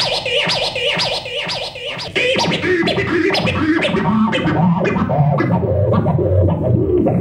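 Turntable scratching over a beat, played through the Reloop IQ2+ USB mixer's crossfader effects. The sound grows steadily duller through the second half as the treble is filtered away.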